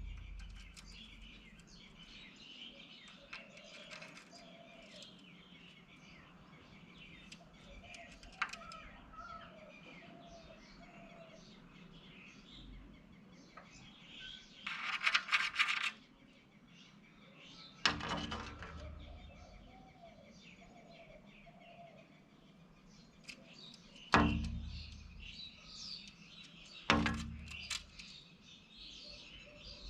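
Birds chirping and twittering on and off, short high calls scattered throughout. Around halfway a harsh rasping burst lasts about a second and a half. A few sharp thumps come in the second half.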